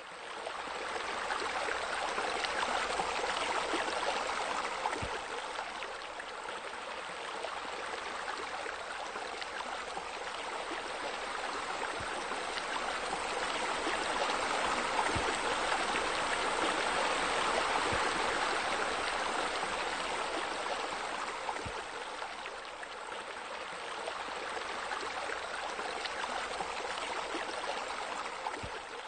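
Steady rush of splashing, falling water, like water-feature spillways pouring into a pool, swelling and easing slowly in loudness.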